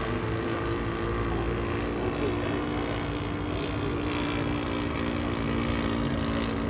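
Engine of a 1:5 scale SAI KZ II radio-controlled model aeroplane running steadily in flight, an even propeller drone.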